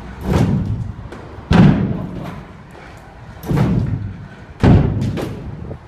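Stunt scooter riding a quarter pipe ramp. Its wheels and deck land on the ramp with four loud thuds, each trailing off into a rolling rumble.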